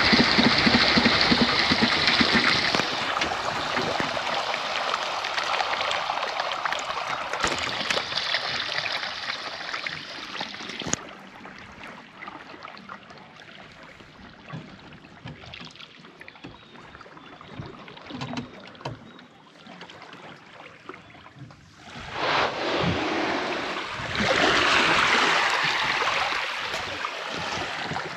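A small river boat's engine running briefly and fading out, then water rushing and lapping against the hull as the boat moves on. The water sound quietens for a while, and a loud rush of water and wind comes on again near the end.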